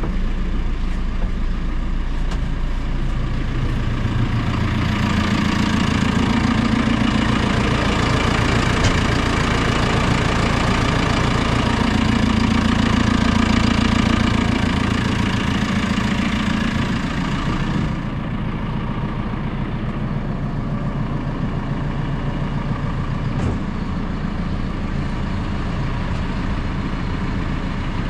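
JCB 4CX backhoe loader's diesel engine running, louder and fuller from about five seconds in, then dropping back to a lower, steadier run at about eighteen seconds in.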